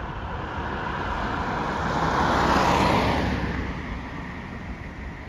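A road vehicle passing close by, its tyre and engine noise swelling to a peak about two and a half seconds in, then fading away.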